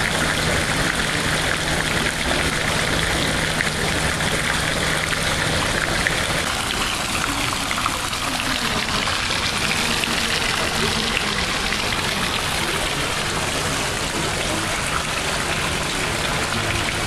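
Heavy rain falling steadily, a dense hiss of rain and running water.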